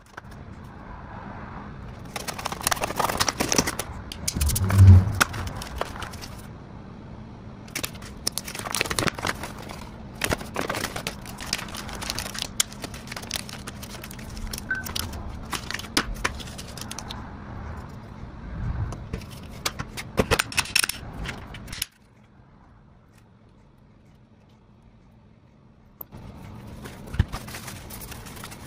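Retail packaging being cut open with a knife and torn apart by hand: crinkling, tearing, scraping and sharp clicks, with one heavy thump about five seconds in. A few seconds of near quiet come late, before the handling starts again.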